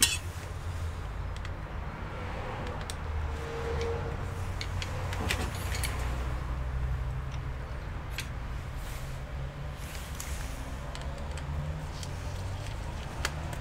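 Small clicks and taps of laptop parts being handled, with a sharp click at the very start, over a steady low hum.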